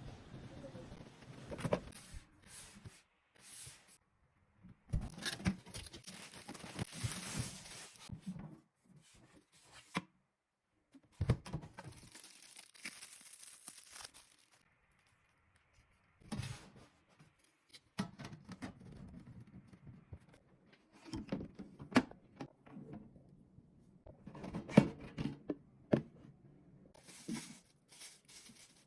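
Packaging being handled and torn open: irregular rustling, tearing and crinkling with sharp clicks and knocks, broken by several short silent gaps.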